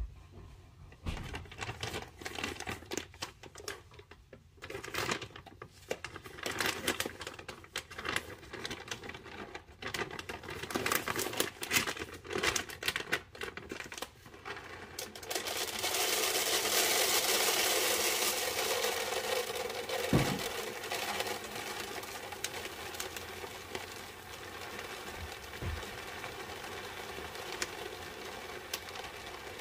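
Plastic cat food bag crinkling and rustling as it is handled, with many sharp crackles. About halfway through, dry kibble pours from the bag into a plastic gravity feeder, a loud rush of pellets for several seconds that then eases to a quieter trickle.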